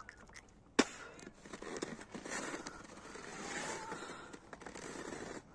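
Handling noise from a hand-held camera: one sharp knock about a second in, then faint rustling and scraping.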